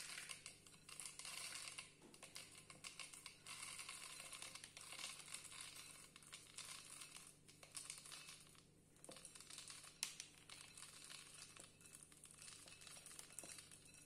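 Faint rustling and light rattling of roasted peanuts being poured into a plastic blender cup, over a low steady hum.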